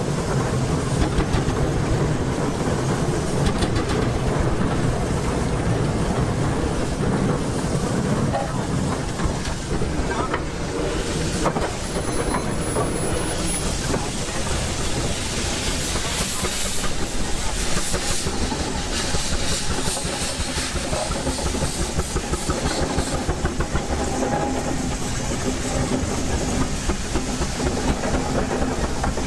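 Antique steam traction engine running under way: quick, even exhaust beats and the clatter of its gearing and iron wheels, with a hiss of steam.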